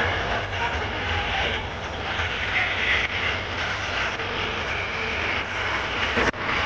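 Loud, steady din of a packed, dancing crowd over a heavy low rumble. The sound drops out for an instant near the end.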